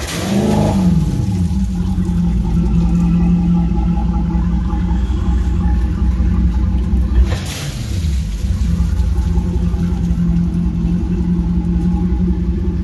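PCM ZR450 V8 inboard engine of a wake boat running on a flush hose, water pouring from its exhaust. It idles steadily, with a quick rev right at the start and another about seven seconds in, each falling back to idle.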